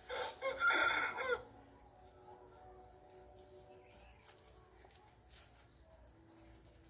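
A single loud animal call, about a second and a half long, right at the start, followed by only faint background.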